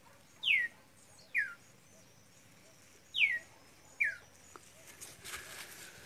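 A bird calling: four short, sharp whistles, each falling steeply in pitch, given in two pairs with the calls of each pair under a second apart. Faint rustling near the end.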